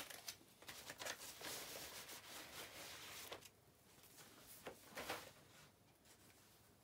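Faint rustling and crackling of plastic product packaging being handled for about three and a half seconds, then a couple of short rustles or knocks about five seconds in.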